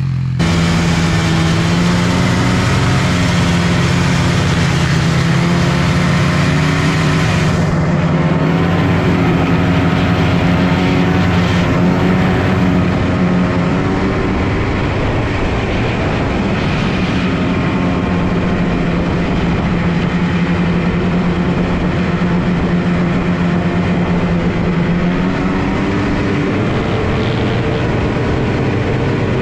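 A vehicle engine running at fairly steady high revs, its pitch wavering a little as the throttle shifts.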